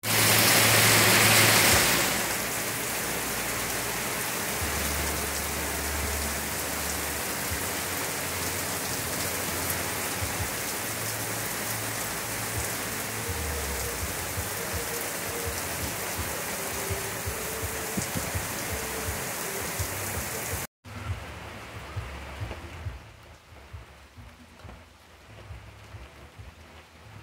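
Heavy rain pouring steadily, hissing on a wet road and vegetation, with a louder rush in the first two seconds. After a sudden break about two-thirds of the way in, the rain continues more quietly.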